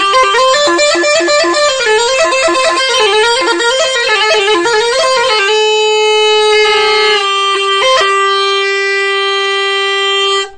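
Neyanban, the southern Iranian bagpipe, playing a fast, ornamented bandari melody. About halfway through it settles on one long held note, with a brief break about two seconds before it stops.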